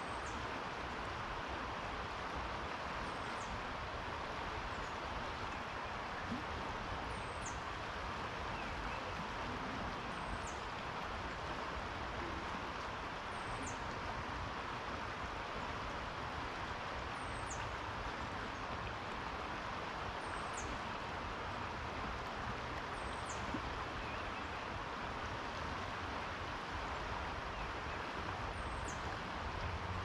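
Steady rush of flowing river water, with a small bird's high, thin call falling in pitch, repeated every few seconds, about ten times.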